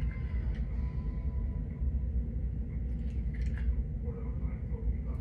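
Steady low rumble of room noise, with a few faint rustles about three seconds in.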